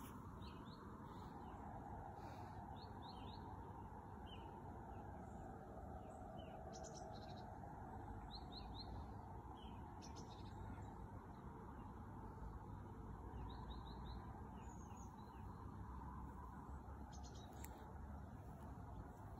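Small birds chirping faintly, short high notes scattered throughout and often in quick runs of three or four, over a steady low background noise.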